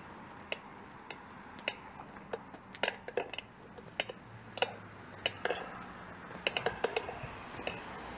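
Footsteps on a pavement while walking: sharp clicks a little more than every half second, with quicker clusters of clicks in the middle and near the end.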